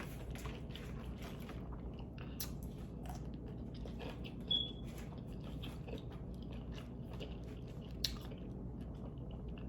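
Close-up chewing and biting of steamed tiger prawns: many small mouth clicks, with a brief high squeak about halfway and a sharper click near the end.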